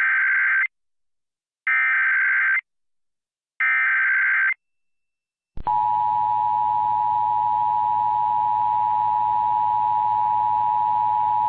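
Emergency Alert System tones on a radio broadcast: three short bursts of the SAME digital data header with silent gaps between them, then about five and a half seconds in the steady two-tone attention signal begins and holds. This is the standard start of an EAS activation, here for an AMBER Alert.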